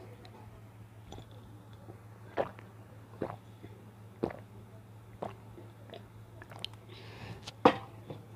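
Chewing noodles close to the microphone: a series of sharp, wet mouth clicks roughly once a second, the loudest near the end, over a steady low hum.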